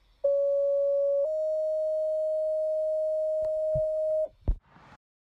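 Fire dispatch two-tone page over a radio: a steady tone for about a second, then a slightly higher tone held for about three seconds, followed by a short click as the transmission keys.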